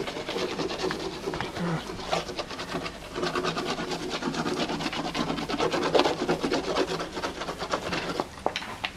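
A small knife blade scraping back and forth over the surface of a dark painted board in many quick rasping strokes.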